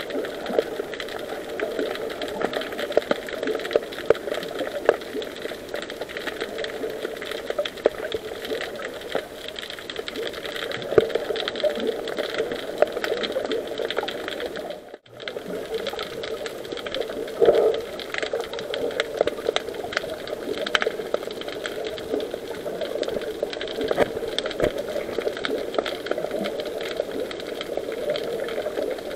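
Underwater sound picked up by an action camera in its waterproof housing: a steady muffled hum with constant faint crackling and clicks. It cuts out for a moment about halfway through.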